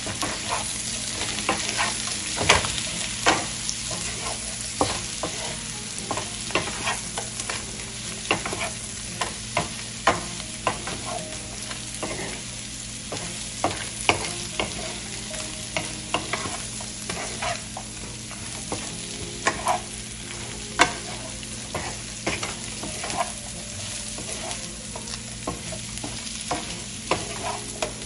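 Shrimp and minced garlic sizzling in oil in a nonstick pan while a wooden spatula stirs and turns them. The spatula knocks and scrapes against the pan in frequent, irregular strokes over the steady frying.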